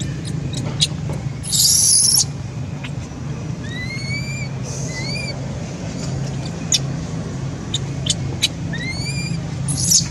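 Baby macaque crying in short, high-pitched squeaks that rise in pitch, repeated several times. A loud hiss-like burst comes about two seconds in.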